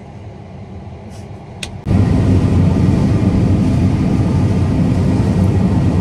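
John Deere combine running during soybean harvest, heard from inside its cab: a low hum with a single click, then about two seconds in a much louder, steady, low-pitched machine noise sets in.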